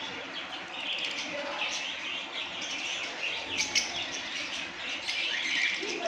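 A flock of caged lovebirds chattering: many quick, overlapping high chirps and squeaks, with no pause.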